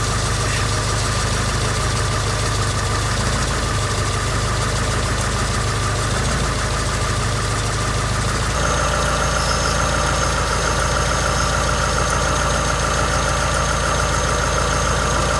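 Proton Saga engine idling with a steady high-pitched whine from its accessory drive belts, a noise the owner traces to a loose power steering belt. About eight and a half seconds in, the whine grows louder and a higher tone joins it.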